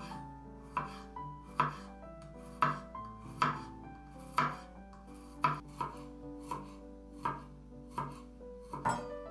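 Chef's knife slicing garlic cloves on a wooden cutting board, about one cut a second, each a short knock of the blade on the wood. Background music plays under the cuts.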